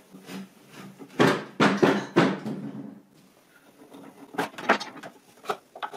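A metal bar clamp's screw handle being turned to tighten a wooden leg-vise jaw against the bench. A cluster of short scraping and knocking sounds comes about a second or two in, with a few lighter clicks near the end.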